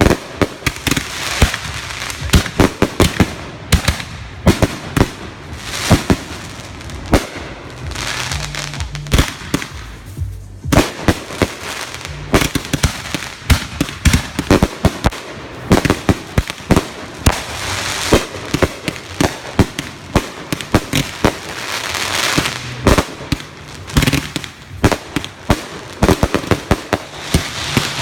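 Backyard consumer fireworks going off: a dense run of sharp bangs, pops and crackles, several a second, with a brief lull about ten seconds in.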